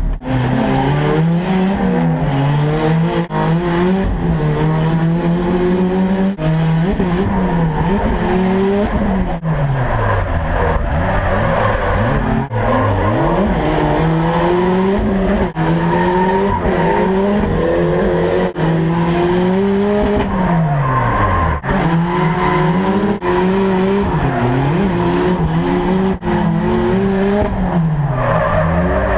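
Drift car's engine heard from inside the cabin, held high in the revs and revving up and down through a drifting lap. Every few seconds the pitch drops sharply and climbs again, with tyres squealing.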